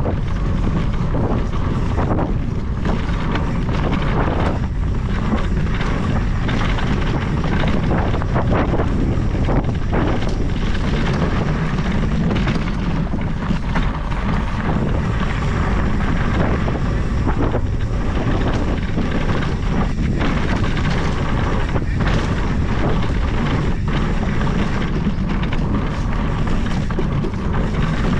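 Wind buffeting a ride-mounted camera's microphone, mixed with a knobby tyre rolling over a dirt and gravel trail. The noise is steady and heavy in the low end throughout.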